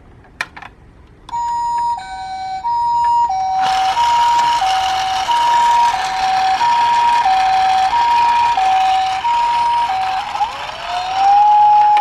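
Ambulance two-tone siren, alternating a high and a low note about every two-thirds of a second, with a steady rushing noise underneath from about four seconds in. A few clicks come before it starts, and a second siren's rising wail comes in near the end.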